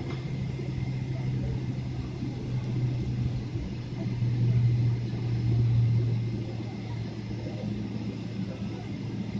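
Boeing 777-300 jet engines heard from inside the cabin while taxiing: a steady low hum over a rumble, with a faint high whine. The hum swells for a couple of seconds in the middle, then settles back.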